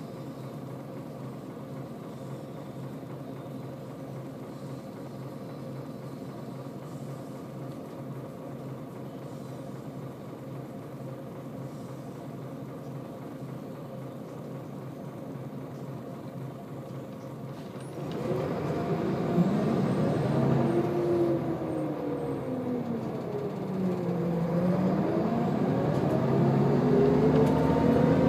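Scania L94UB bus's diesel engine heard from inside the saloon, running steadily at idle. About two-thirds in it opens up and gets much louder, its pitch climbing and dropping with the gear changes of the ZF automatic gearbox, then climbing again: the engine's thrash under acceleration.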